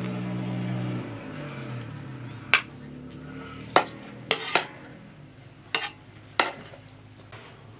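A metal serving spoon clinks against an aluminium cooking pot and dishes as rice pilaf is served, with about six sharp separate clinks. A low hum is heard in the first second.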